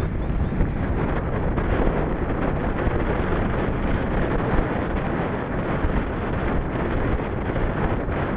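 Wind rushing over a camera microphone during a bicycle ride, a steady, dense noise heaviest in the low rumble.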